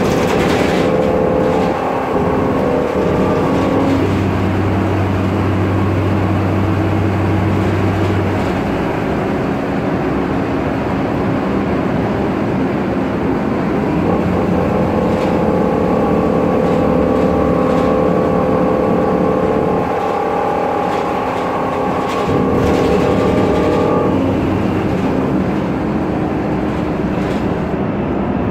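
Cabin noise of a 2010 MAN Lion's Classic CNG city bus on the move: engine and drivetrain running with several steady whining tones that fade in and out, which the uploader puts down to the differential, over a constant road and body noise. The uploader also points to noisy, rattling interior parts.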